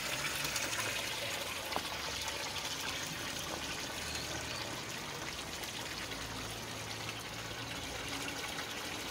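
Water pouring steadily from an old iron spout pipe and splashing into a shallow stone basin below.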